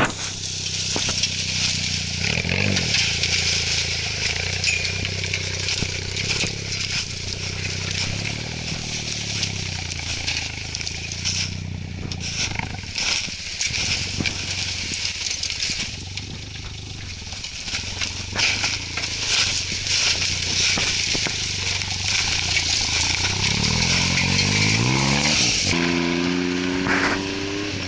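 Suzuki Jimny's engine running at low revs while it drives through snow, with a steady crackling crunch from the tyres. The revs climb steeply a few seconds before the end.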